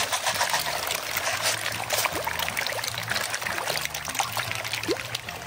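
Koi splashing and slurping at the pond surface as they feed, many small wet splashes and gulps over a steady trickle of water.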